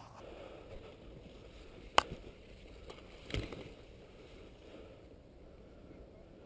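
A single sharp click about two seconds in, the loudest sound, followed about a second later by a duller, lower knock, over faint rustling.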